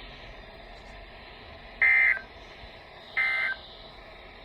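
Two short data bursts, each about half a second long and about a second and a half apart, over faint radio hiss. They are the Emergency Alert System end-of-message (NNNN) code from a NOAA Weather Radio broadcast, which signals that the severe thunderstorm warning has ended.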